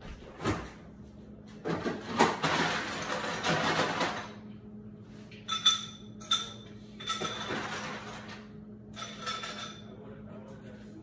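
Glassware handled on a kitchen counter: a long stretch of scraping noise, then several shorter clinks, some with a brief ringing glass tone.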